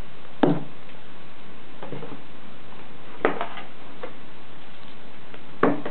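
Packaging being handled in an open cardboard laptop box: three sharp knocks and a few fainter taps and rustles as paper packets and the molded tray are moved, over a steady hiss.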